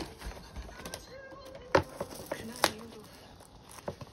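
Sharp clicks and taps from handling a takeout paper soup cup and its lid on a wooden tray. The two loudest come about a second apart, just under two seconds in.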